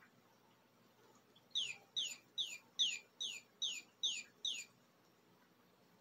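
Electronic chirping plush toy bird, set off as a cat paws it, giving a run of eight identical quick chirps, each a falling whistle, about two and a half a second, starting about one and a half seconds in.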